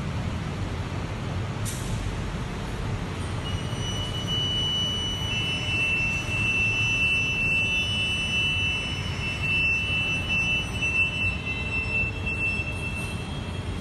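Metro train rumbling, with a thin, high steady squeal of wheels or brakes that comes in a few seconds in and fades near the end.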